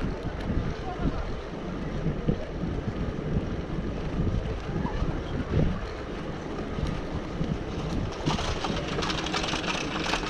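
Wind buffeting the microphone, an uneven low rumble; about eight seconds in, a rougher hiss joins it.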